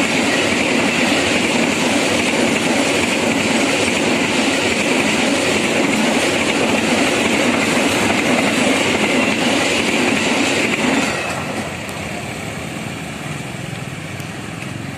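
Passenger train passing at speed over a level crossing: a loud, steady rumble and rail noise of the carriages running by, which drops sharply about eleven seconds in to a much quieter background.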